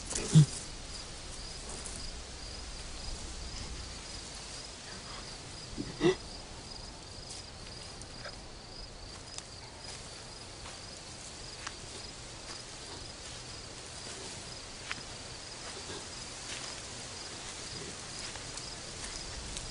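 Crickets chirping in a steady pulsing trill. A man's voice gives two brief pained groans, one just after the start and one about six seconds in.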